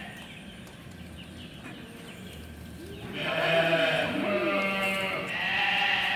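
Piglets squealing: a long, high pitched squeal starting about three seconds in, then a second one near the end.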